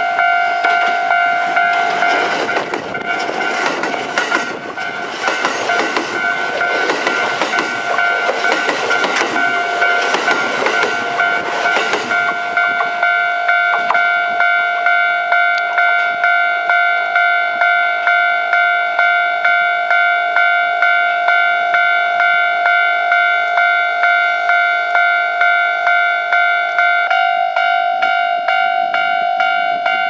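A Japanese level-crossing warning bell rings steadily at about two strikes a second throughout. For roughly the first twelve seconds a Kintetsu 5800-series + 9000-series coupled train passes close by, with wheel rumble and rail clatter over the bell.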